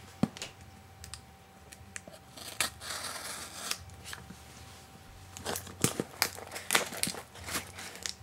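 Folding knife blade cutting and scraping through packing tape on a cardboard box, then cardboard being torn and pulled open, with a run of sharp scratchy strokes in the second half.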